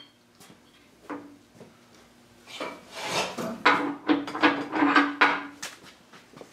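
Metal knocks, clanks and scraping from a steel hydraulic cylinder rod and its gland being handled in a press. The sounds come in a cluster after a quiet start of about two and a half seconds, some with a short metallic ring.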